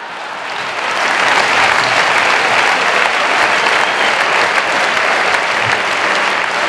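Theatre audience laughing and applauding after a punchline. The applause builds over the first second and then holds steady.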